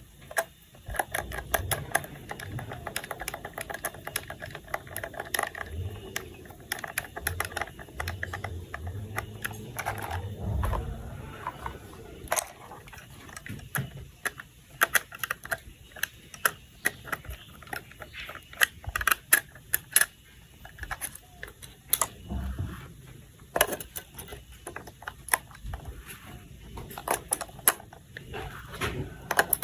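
Small plastic toy parts being handled and fitted together: a long, irregular run of sharp clicks and taps with occasional soft thuds.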